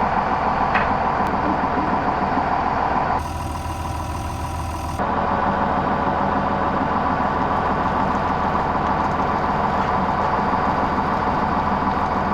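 Tractor diesel engine running steadily at low revs. It drops quieter for about two seconds near three seconds in, then comes back up.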